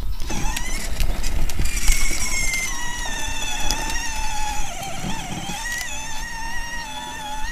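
Electric motor and gearbox of a child's battery-powered ride-on toy car whining as it drives. It holds a steady high tone whose pitch wobbles and sags for a moment around the middle, over a low rumble from the wheels.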